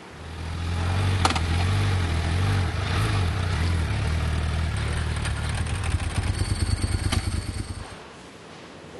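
Motorcycle engine running with a deep, steady note that turns into a fast, uneven pulsing in its last couple of seconds and stops abruptly near the end. A sharp click comes about a second in.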